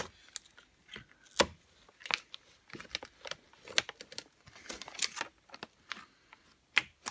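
Irregular short scrapes, clicks and crinkles of hands working vinyl tint film on a plastic headlight lens.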